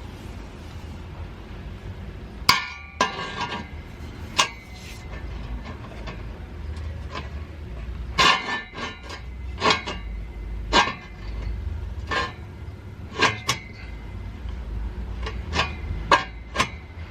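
Irregular sharp metallic clanks and knocks, several with a brief ringing, as steel exhaust piping is manoeuvred and knocked into place under the car.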